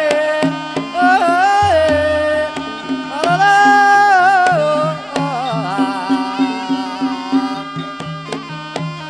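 Banyumasan gamelan music for ebeg: a high, likely female voice sings long held, wavering ornamented notes over steady low instrument tones and frequent sharp kendang hand-drum strokes. The voice stops about three-quarters of the way through, leaving the drum and instruments.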